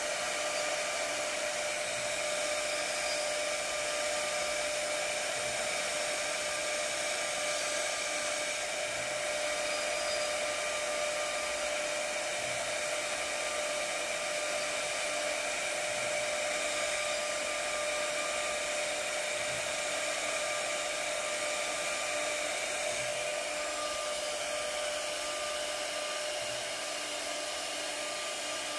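CNC wood router's spindle motor running with a steady high whine, with a faint low throb repeating every couple of seconds.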